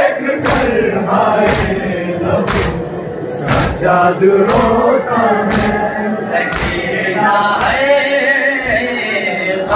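A crowd of men chanting a noha in unison, with sharp collective chest-beating (matam) striking about once a second. The strikes drop out about seven seconds in while the chant holds on.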